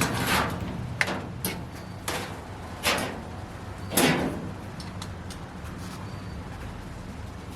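Sheet-metal clunks and rattles as an 18-gauge steel floor pan is handled and Cleco fasteners are set in it, about six sharp knocks in the first four seconds, then quieter. A steady low hum runs underneath.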